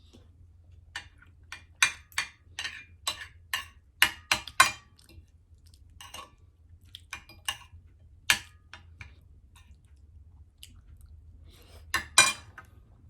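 Close-miked eating of dinuguan with rice: a run of sharp mouth clicks and chewing sounds, several a second for the first few seconds, then sparser, with a short cluster near the end, alongside the clink of a utensil on a plate.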